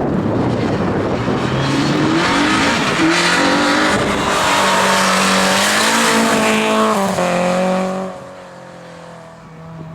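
Rally car engine running hard at close range, its note shifting pitch several times as the driver works through the gears. About eight seconds in it drops away sharply to a quieter, lower note.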